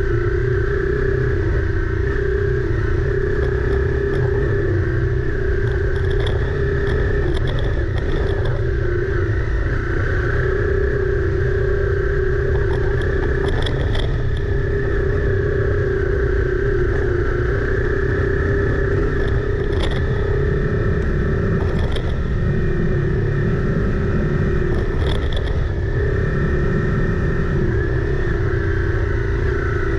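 Honda CRF250 Rally's single-cylinder engine running at a steady, even speed on a rough dirt track, under a low rumble. A few light sharp clicks come and go.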